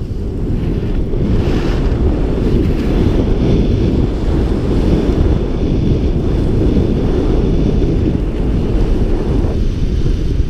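Wind rushing over a GoPro's microphone while skiing downhill, a loud steady low rumble with no breaks.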